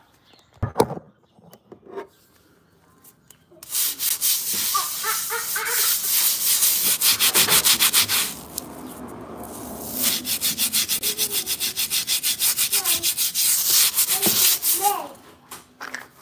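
A cloth rag scrubbed hard back and forth on a concrete floor, in two long runs of quick, even strokes of about five a second with a short pause between them.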